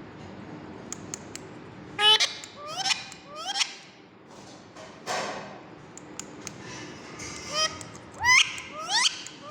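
Indian ringneck parrot giving short harsh calls, each rising in pitch, in two groups of three with a pause of about four seconds between them. A few light clicks are heard between the calls.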